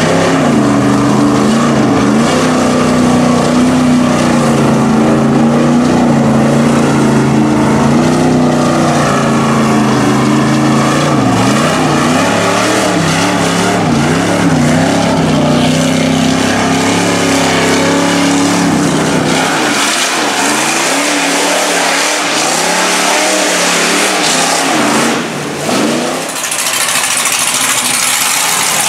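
Pickup truck engine running under load as it wades through deep floodwater, its pitch rising and falling, with water rushing and splashing around it. About two-thirds of the way through the engine's low note drops away, leaving mostly a rushing hiss.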